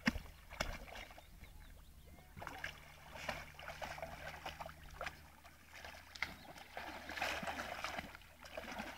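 A dog wading in shallow water, splashing and sloshing in uneven bursts as its legs churn the water.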